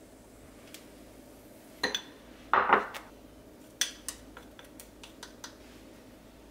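Chopsticks and a small glass bowl clinking against a ceramic plate: a couple of sharp clinks, a louder clatter about two and a half seconds in, then a run of light taps.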